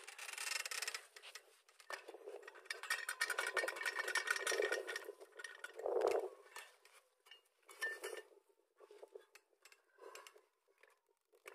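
Metal parts clinking and clattering in a run of quick knocks and clinks, some ringing briefly.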